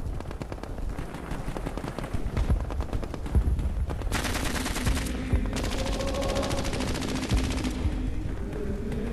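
Rapid machine-gun fire, a dense run of shots that keeps going, used as a war sound effect. About four seconds in, sustained tones of music begin to come in beneath it.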